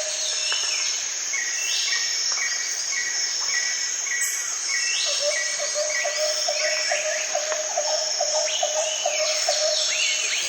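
Jungle ambience sound effect: a steady high insect drone with many overlapping bird calls, including series of short, evenly repeated chirps, one high and one lower in pitch.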